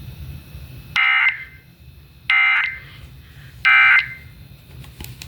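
Emergency Alert System SAME data tones: three short, identical bursts about a second apart, the end-of-message code that closes a severe thunderstorm warning broadcast.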